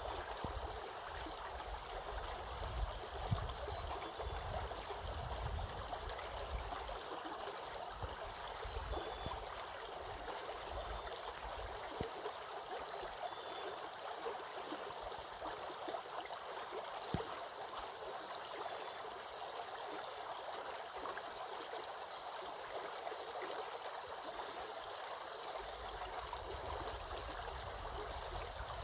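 Small stream running steadily beneath a cover of snow and ice, its water heard through openings in the snow.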